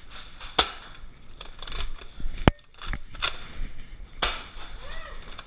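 Nerf blasters firing: about five sharp pops spread across a few seconds, the loudest about two and a half seconds in.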